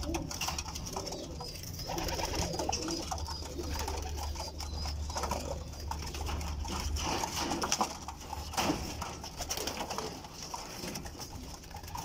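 Caged domestic pigeons cooing, with scattered short rustles and knocks from a pigeon being handled.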